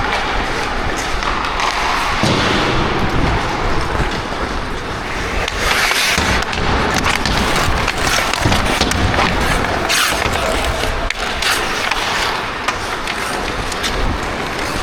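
Ice hockey skate blades carving and scraping across rink ice, with louder hissing scrapes in the middle and scattered sharp knocks.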